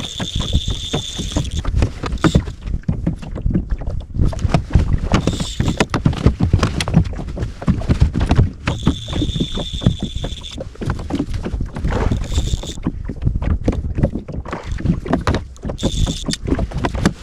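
Water slapping against a small boat's hull, with wind buffeting the microphone. A high, steady tone comes and goes about five times, each time lasting between a fraction of a second and about two seconds.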